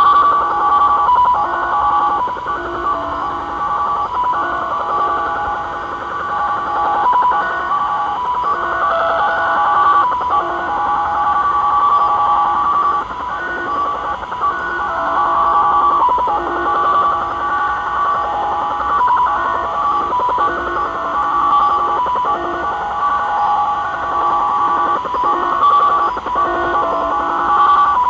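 The Japanese Slot Machine (XSL) digital signal, received in upper sideband on a Tecsun PL-600 portable shortwave radio. Several tones sound at once and keep hopping between pitches in a continuous chattering warble, over a hiss of static.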